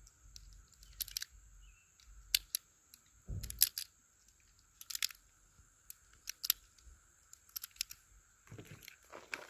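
Cartridges being pressed one at a time into a .380 pistol magazine: a series of short, sharp clicks at uneven spacing, with one duller knock about three and a half seconds in.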